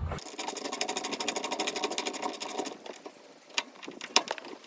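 Socket ratchet wrench clicking rapidly and evenly for about two and a half seconds as a bolt is run in, then a few separate clicks.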